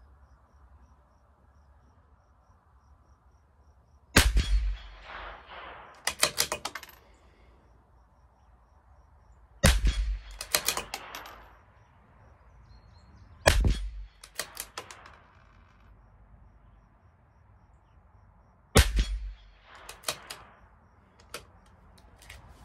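A CZ 457 LRP bolt-action .22 LR rifle fires four shots a few seconds apart, each followed by a quick run of metallic clicks as the bolt is worked to eject the case and chamber the next round. The rounds are Eley Force, which the shooter judges probably supersonic.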